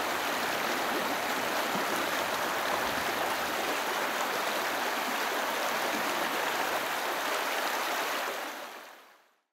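Stream water running, a steady rush that fades out near the end.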